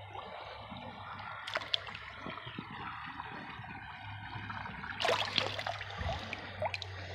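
Shallow creek water trickling, with a few short knocks and splashes as a glass bottle is handled in the water, the loudest about five seconds in.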